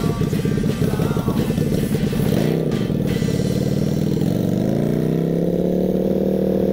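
Motorcycle engine running as the bike rolls off. Its pitch dips and climbs about two to four seconds in, then holds at a steady pitch.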